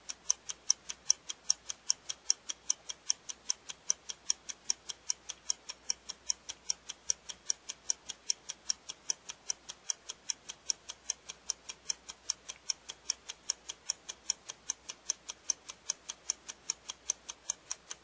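Clock-ticking sound effect running with an on-screen countdown timer during a one-minute exercise: fast, even ticking.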